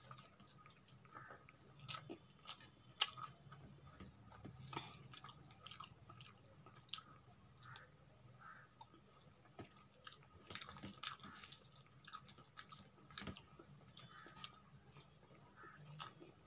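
Quiet close-up eating sounds: a person chewing rice and taro (arbi) curry eaten by hand, with irregular wet smacks and clicks of the mouth and of the hand working the food.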